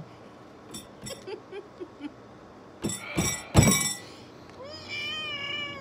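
A plastic water bottle being handled, with light clicks and then loud crackles and knocks against the table about three seconds in. Near the end comes a long, high, wavering wordless vocal moan.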